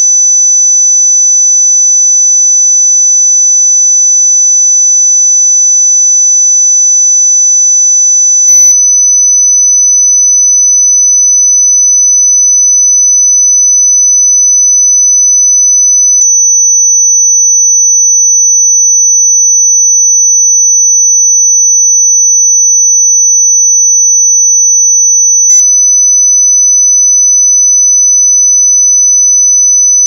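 A continuous electronic 6 kHz sine tone played as an anti-bark "dog whistle", holding one steady high pitch without a break. Faint clicks come three times.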